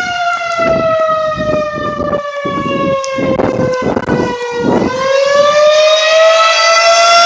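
Rotating outdoor tornado warning siren sounding a loud, steady wail for its routine test. Its pitch sags slowly to a low point about four and a half seconds in, then climbs back up.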